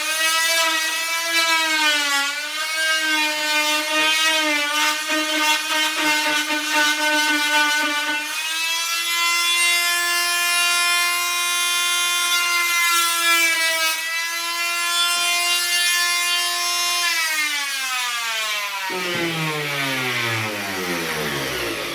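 Oscillating multi-tool cutting into a timber door lining, a steady high buzz whose pitch wavers as the blade is pushed into the wood. Near the end the pitch falls steadily as the tool is switched off and winds down.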